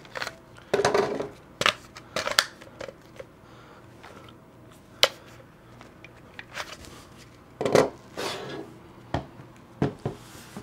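Clicks and knocks of a Glock 17 in a CAA Roni carbine kit being handled through a magazine change, with one sharp click about five seconds in. Louder knocks near the end as the carbine is laid down on the wooden table.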